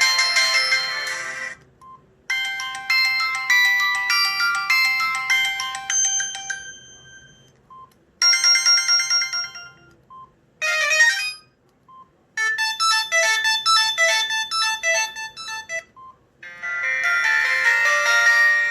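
Samsung SGH-T729 Blast phone ringtones played one after another: a string of short electronic melodies, each lasting a few seconds. A single short beep sounds in each brief pause between them.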